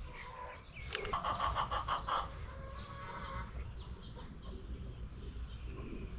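Birds calling: a quick run of short, repeated calls about a second in, then a few fainter calls, over a low steady background noise.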